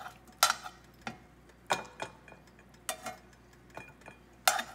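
Stainless steel kitchen tongs clicking and tapping against a cast iron skillet as pieces of chicken are lifted out: a series of sharp metallic clicks, some with a short ring, irregularly spaced, the loudest near the end.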